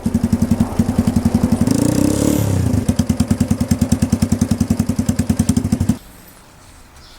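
Small Honda Cub single-cylinder four-stroke motorcycle engine with a long custom exhaust idling with an even, rapid chug, revved briefly about two seconds in, then switched off about six seconds in.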